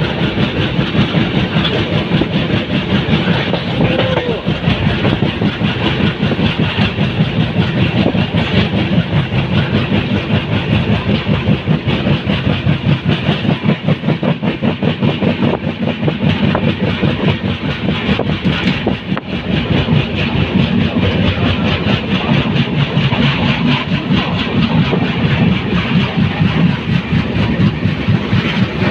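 Moving passenger train: a steady, loud rumble of wheels on rails with a fast, continuous rattling clatter.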